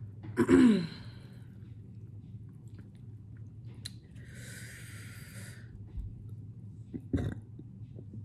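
A loud, brief vocal outburst with a falling pitch, like a sneeze or yelp, about half a second in. About four seconds in comes a long breathy blow, as of air blown over scalding-hot food, and there is a short low mouth sound near the end.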